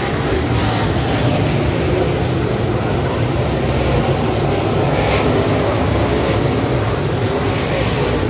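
A field of UMP dirt modified race cars racing around a dirt oval, their V8 engines running hard at high revs in a steady, continuous din.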